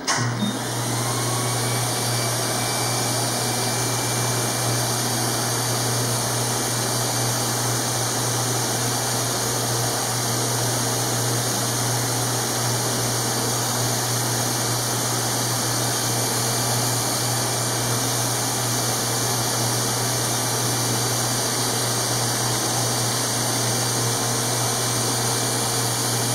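Surgical smoke evacuator running during CO2 laser ablation of a skin growth: a steady rushing suction noise with a low hum underneath, switching on suddenly at the start.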